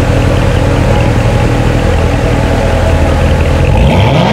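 Supercharged 6.2 L LT4 V8 of a 2017 Chevrolet Corvette Z06 idling through its quad exhaust with a steady, pulsing low note, rising in pitch as it revs near the end.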